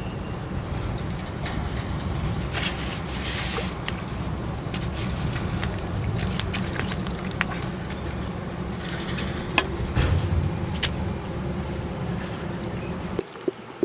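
Night outdoor ambience: insects chirring in a steady high-pitched pulse over a low steady rumble, with a few sharp taps and clicks now and then. The rumble cuts off abruptly near the end.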